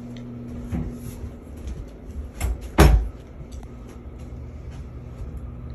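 A few knocks and rustles over a steady low hum, the loudest a heavy thump nearly three seconds in.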